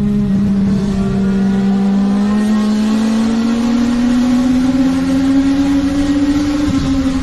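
Legends race car's Yamaha motorcycle engine running hard at high revs. Its pitch climbs slowly through most of the stretch and drops near the end.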